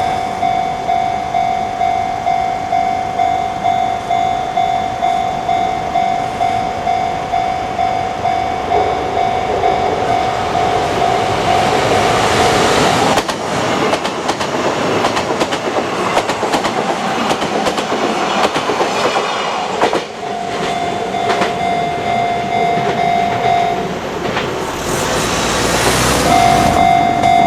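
Japanese level-crossing alarm on the Kintetsu Minami Osaka Line ringing a steady, repeating electronic ding. About halfway through, a train passes for several seconds, its wheels clattering over the rail joints. A brief loud rushing burst comes near the end.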